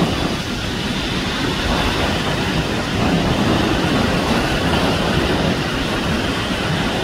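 Steady rumbling wind noise buffeting the microphone over choppy open sea, mixed with the rush of the water, with no clear engine note.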